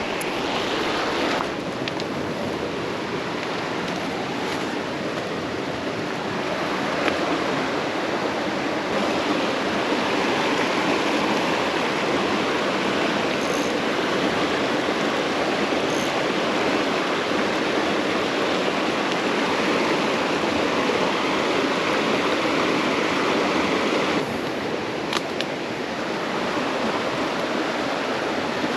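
Creek water rushing steadily over rocks, its tone shifting a couple of times.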